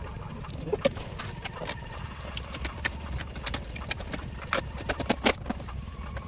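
Irregular plastic clicks and knocks as the 2006 Subaru Outback's centre console trim panel is handled and pressed back into place around the gear shifter.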